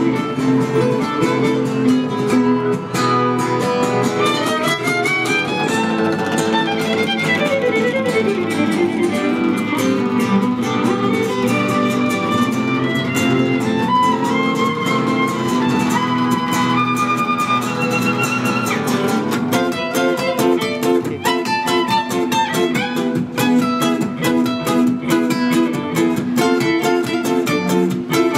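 Live acoustic trio of violin and two acoustic guitars: the guitars strum a steady rhythm of chords while the violin plays the melody. A few seconds in the violin climbs in a quick run of notes, then slides down.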